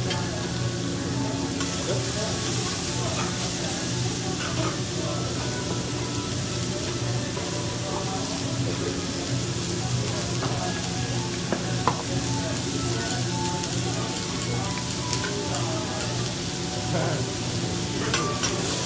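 Vegetables sizzling steadily on a hot hibachi flat-top griddle, over a low steady hum, with a few sharp clicks near the end.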